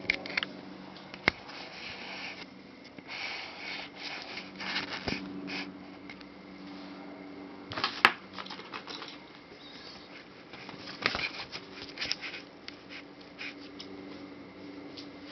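Handling noises: rustling and scattered clicks, with a sharp click about a second in and a louder one about eight seconds in, over a steady low hum.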